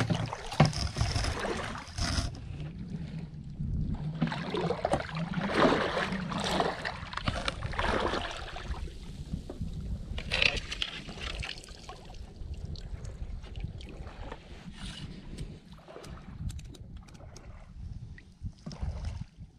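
Boots wading through shallow water, with irregular splashing and sloshing, louder in the first half.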